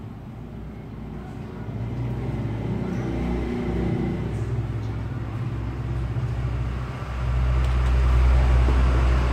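Low rumble of road traffic, with an engine note swelling about three seconds in and the rumble growing louder from about seven seconds in.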